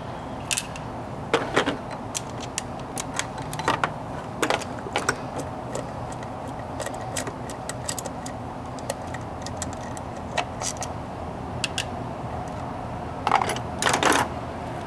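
Light clicks and clinks of hands and a tool working on a replacement ignition distributor as its cap is taken off, with a few louder knocks near the end, over a steady low background hum.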